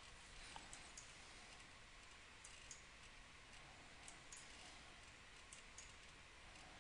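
Faint computer mouse clicks, in quick pairs every second or two, over a near-silent hiss.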